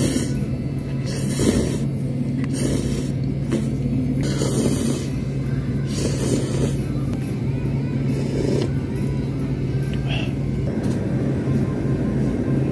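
Noodle slurping: repeated short, breathy slurps about every one to two seconds as ramen is sucked up from the cup, stopping after about eight and a half seconds. A steady low hum runs underneath.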